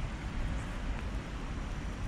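Steady rain falling on a river's surface, an even hiss, with wind rumbling on the microphone.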